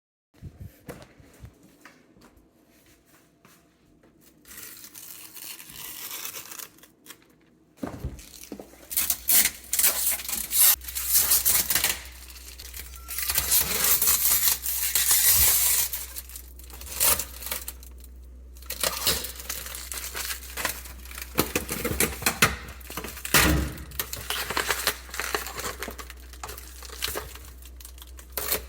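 Packaging on a new refrigerator being torn and crumpled in irregular rustling bursts, faint at first and much louder from about eight seconds in, over a low steady hum.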